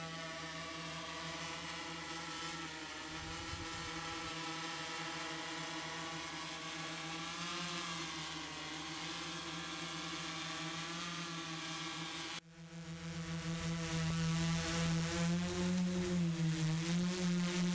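Tarot 680 hexacopter's motors and propellers humming steadily while it holds position in the air, the pitch wavering slightly as the motors adjust. About twelve seconds in the sound cuts out for an instant and comes back louder, with the pitch dipping and rising again near the end.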